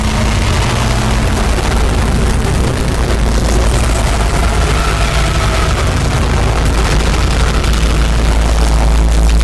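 Experimental noise music: a loud, dense, unbroken wash of noise across all pitches over a heavy steady low rumble, with no beat or voice.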